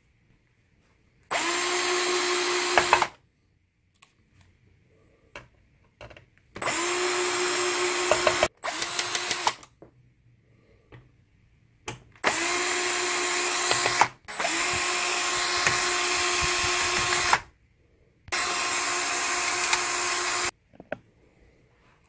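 Cordless drill-driver backing screws out of a projector's metal shield, in six runs of one to three seconds each. The motor spins up quickly at each start, then holds a steady pitch.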